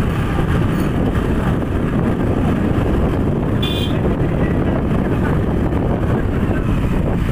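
Street traffic heard while moving along the road: a steady, loud low rumble of vehicles and road noise, with a short high horn toot about three and a half seconds in.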